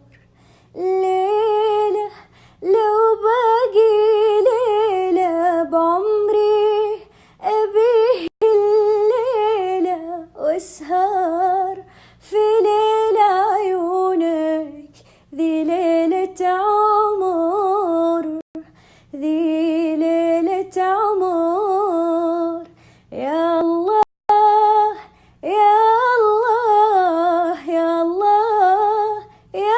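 A woman humming the melody of an Arabic song unaccompanied, in long, wavering, ornamented phrases broken by short pauses for breath.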